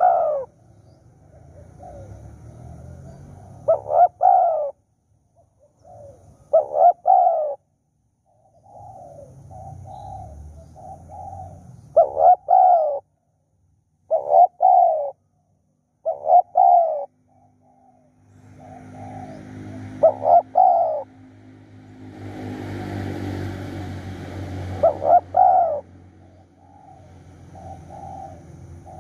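Spotted doves cooing: short phrases of loud, low coos every few seconds, with fainter cooing between them. A rushing noise swells and fades about two-thirds of the way through.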